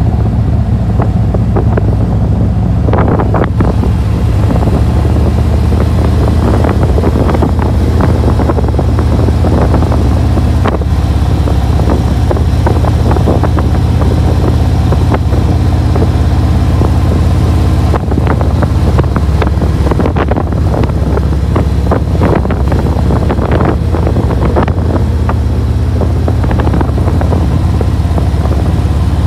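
Harley-Davidson touring motorcycle's V-twin engine running steadily at cruising speed, heard from the rider's seat. Wind buffets the microphone throughout.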